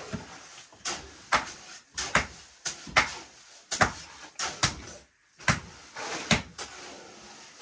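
A quick, uneven run of sharp knocks, hard objects striking one another about two or three times a second, with a brief pause a little past the middle.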